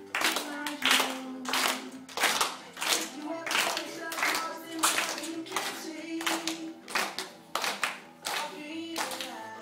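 A group of children clapping together in a steady beat while young girls sing a song over it.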